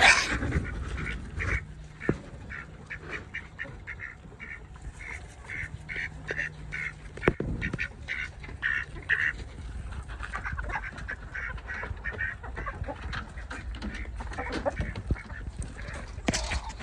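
Ducks quacking in quick runs of short calls, with a single sharp knock about seven seconds in.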